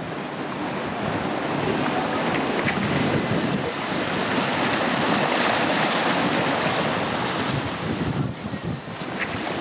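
Wind buffeting the microphone over the rush of water along a sailboat's hull under sail, with the bow wave surging and splashing; a brief lull about eight seconds in.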